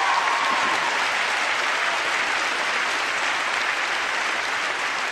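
Audience applauding: a large crowd clapping steadily, the clapping slowly tapering off near the end.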